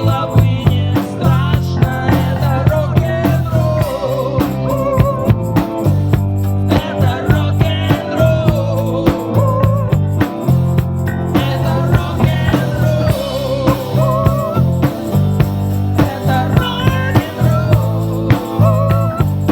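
Rock music: a drum kit keeps a steady beat under a bass line, with a wavering, sliding lead melody over the top.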